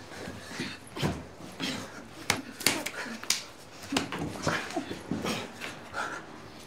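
A man and a woman breathing hard and moaning, the sounds coming in uneven bursts with several short, sharp gasps or bumps.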